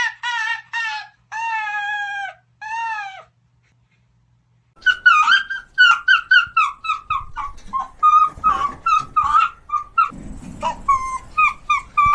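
Arctic fox calling: a fast series of short, high yips that fall in pitch, then a few longer drawn-out calls. After a pause of about a second and a half, a rapid run of chattering yips begins about five seconds in, with low noise under the later calls.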